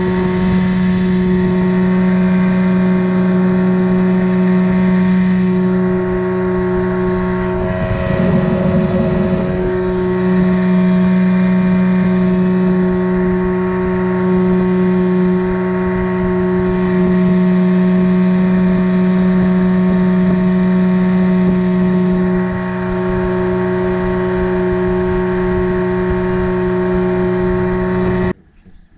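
Boat motor running at a steady cruising speed with a constant drone, wavering briefly about eight seconds in, then cutting off suddenly near the end.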